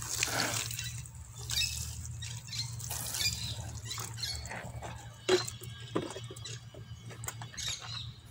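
Water from a watering can's rose splashing and pattering onto garden plants and soil, thinning to a thin trickle and drips. A sharp tap about five seconds in.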